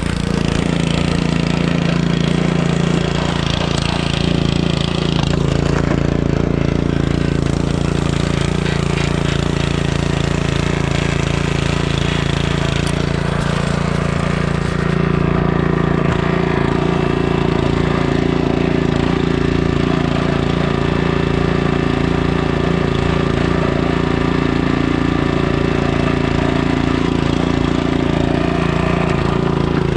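Log splitter's gasoline engine running steadily, its note shifting slightly about a quarter of the way through.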